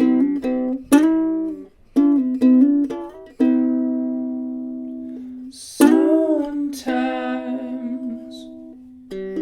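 Soprano ukulele with a 3000-year-old Sitka spruce top and pernambuco back and sides, played without effects: quick strummed chords in the first few seconds, then chords left to ring out for about two seconds each, the pitch wavering on some of them.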